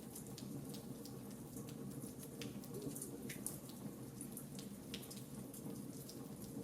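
Fire in a fireplace crackling: irregular sharp pops and snaps scattered over a steady low rumble.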